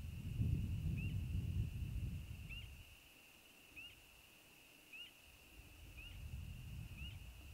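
American bittern giving its low, gulping pump call ('onk-a-chonk'), which stops after about two and a half seconds and starts up again about six seconds in. A steady high-pitched chorus with a short rising note about once a second runs behind it.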